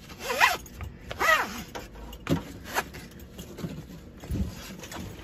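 Nylon harness webbing pulled through a tri-glide and the slots of a metal backplate: two squeaky rasps whose pitch sweeps up and down, about half a second and a second in, then several shorter scrapes and rustles as it is worked tight.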